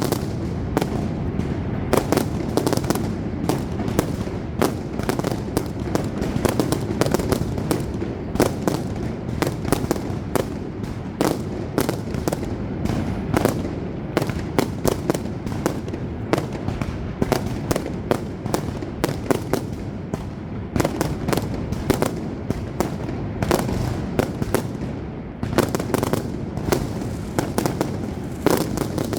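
Aerial fireworks display going off without a break: rapid bangs and crackling shell bursts over a continuous low rumble of booms. The barrage eases slightly for a moment about three-quarters of the way through, then picks up again.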